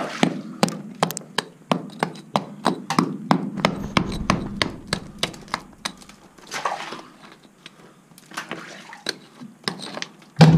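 A steel rock pick chipping at hard rock ore in a mine wall, breaking off ore samples from a rusty vein. It strikes fast, about three sharp blows a second, for the first five seconds or so, then a few scattered strikes.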